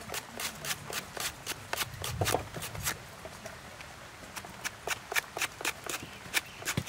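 A small knife blade slicing crisply through a fresh lemongrass stalk, a quick run of short cuts at about three a second that thins out for a moment about three seconds in.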